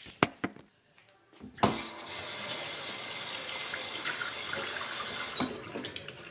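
A few clicks, then a tap is turned on about one and a half seconds in and water runs steadily into a sink, easing off near the end.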